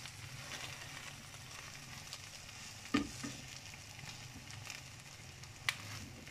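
An egg omelette wrapped around sandwich bread sizzles in butter and oil in a nonstick frying pan, while a slotted spatula works it, giving a knock about three seconds in and a sharp click near the end.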